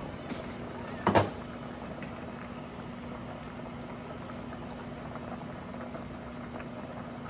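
A pot of potatoes and vegetables boiling on the stove: a steady bubbling hiss over a low steady hum, with one sharp knock about a second in.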